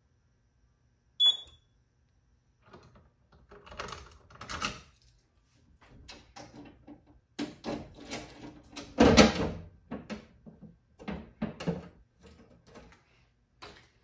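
A short, high beep about a second in, then a run of clicks, clunks and rattles as the steel cabinet of a Simplex 4006 fire alarm control panel is closed up and handled. The loudest is a heavy thump a little past the middle.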